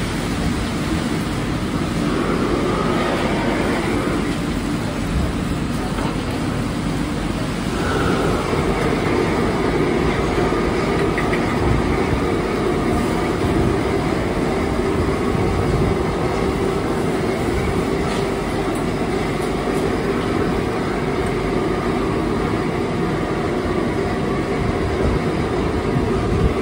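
High-output gas wok burners running with a steady roar under the range hood. The roar grows louder and fuller about eight seconds in, as the flame is turned up for stir-frying.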